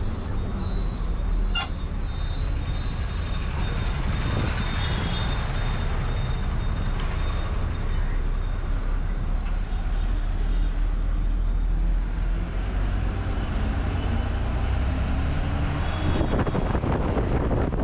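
Steady low rumble of a bus's diesel engine and road noise heard from inside the moving bus, with a single sharp click about one and a half seconds in.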